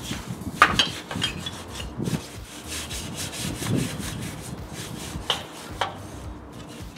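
Hand scrubbing of a Harley-Davidson Roadster motorcycle: uneven rubbing strokes, with a few sharp knocks, the loudest about half a second in.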